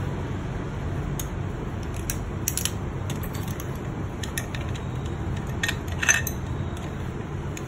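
Metal hand tools and small engine parts clinking against the aluminium cases of an Aprilia RSV4 engine being assembled by hand: a few scattered sharp clinks, the loudest about six seconds in, over a steady low background hum.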